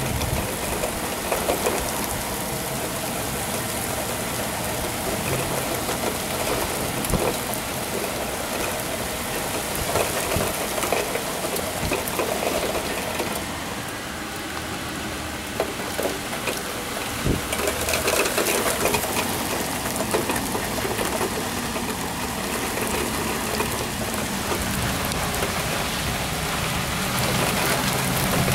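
Rain pouring down steadily on pavement, a continuous hiss of splashing water with a few sharper drip taps here and there.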